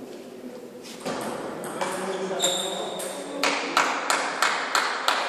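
Table tennis ball bouncing repeatedly, a run of sharp ticks about three a second in the second half, after a few scattered ball clicks earlier on.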